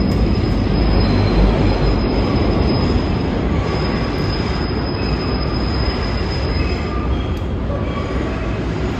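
New York City Subway 6 train running through the tight curve of the City Hall loop: a steady rumble of the cars with a high, steady wheel squeal that stops about seven seconds in.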